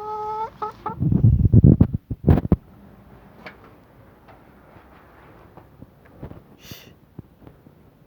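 Chickens feeding: a short pitched call at the start, then a run of loud low thumps and a sharp knock in the first couple of seconds, followed by scattered light taps of pecking.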